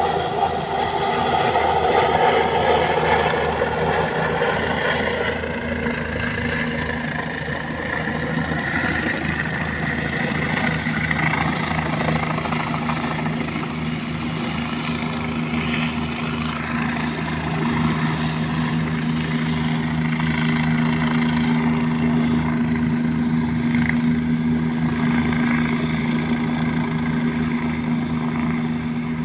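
Helicopter flying overhead and circling: a steady fast rotor chop under a high whine, loudest in the first few seconds, the whine rising slightly in pitch over the first ten seconds.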